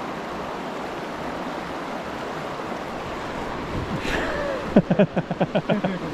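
Small mountain stream running steadily. Near the end, a person's voice makes a short run of quick pitched sounds.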